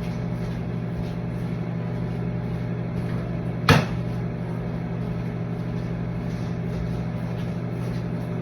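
A steady low hum of a running kitchen appliance, with one sharp knock about three and a half seconds in.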